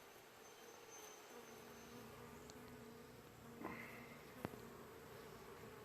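Honey bees humming faintly in an opened hive, a steady drone, with a single short click about four and a half seconds in.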